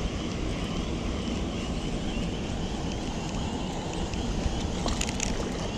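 Wind blowing across the microphone: a steady low rumble, with a few faint clicks about five seconds in.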